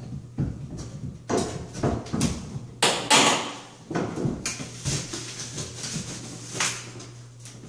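Fiberglass tub surround panel being pried and pulled away from the wall: irregular scraping, creaking and cracking as it separates, the loudest crack about three seconds in.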